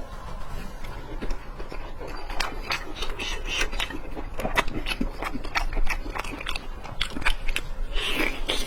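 A person chewing a mouthful of pan-fried chicken leg cutlet close to the microphone, with many short wet clicks and smacks from the mouth.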